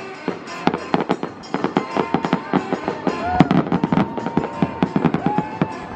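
Fireworks display: shells bursting in rapid bangs and crackles, several a second, one after another without a break.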